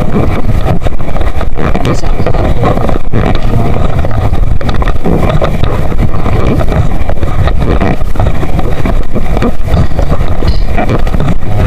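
Small boat's motor running steadily and loudly while under way, with wind and waves against the hull.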